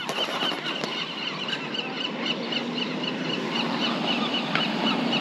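A bird chirping rapidly and evenly, several short calls a second, over steady outdoor background noise. A low steady hum joins about two seconds in.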